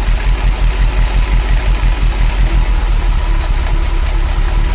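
Ferrari V8 engine idling with the sensors for both banks (cylinders 1–4 and 5–8) unplugged, still running. The idle pulses unevenly at first and steadies about halfway through.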